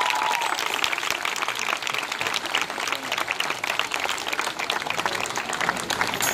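Audience applauding: many hands clapping in a dense, steady patter, with the last of a cheer dying away at the start.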